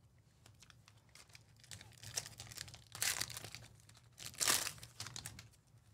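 Plastic trading-card pack wrapper crinkling as it is handled and opened, with faint clicks throughout and two louder rustles, about three seconds and about four and a half seconds in.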